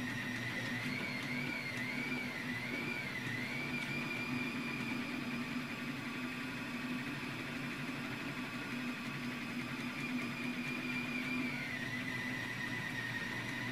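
Anycubic Kossel delta 3D printer printing a circle: its stepper motors give a steady whine that wobbles up and down in pitch early on and again near the end, over a steady lower hum.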